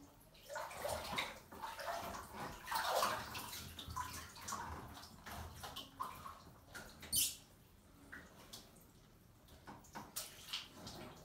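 Bathwater splashing and sloshing as Nike Air Max 1 trainers step and shift about in a bathtub, in irregular bursts, the loudest a sharp splash about seven seconds in.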